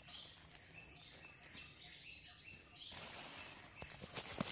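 Faint forest ambience with birds chirping, including one sharp high chirp about a second and a half in, and a soft rustling from about three seconds in.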